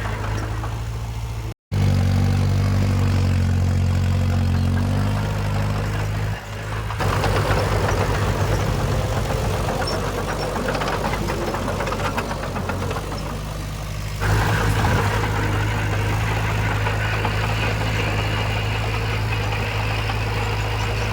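Diesel engine of heavy earthmoving machinery running steadily. Under two seconds in the sound drops out briefly, and it changes abruptly about 7 and about 14 seconds in.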